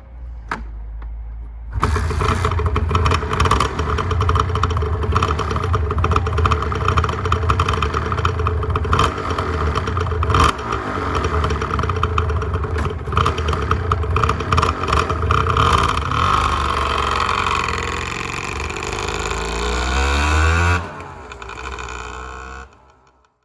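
Honda NS400R's two-stroke V3 engine being kick-started; it catches about two seconds in, then runs with repeated throttle blips. Near the end the pitch climbs, then drops off and fades as the bike rides away.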